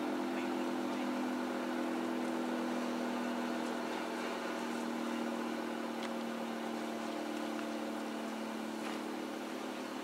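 Federal Signal 3T22 electronic outdoor warning siren sounding its steady alert, a continuous three-tone chord held at an even pitch during a monthly siren test.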